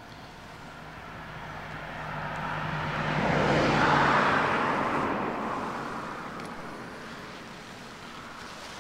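A car driving past: tyre and engine noise swelling to a peak about four seconds in, then fading away.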